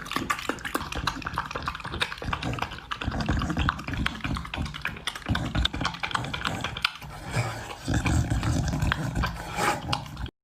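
An animal's irregular noises mixed with many short clicks and knocks, louder in stretches, cutting off abruptly just before the end.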